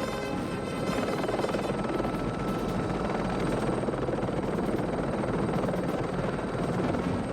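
Helicopter in flight: a steady, loud rotor and engine noise that swells slightly near the end.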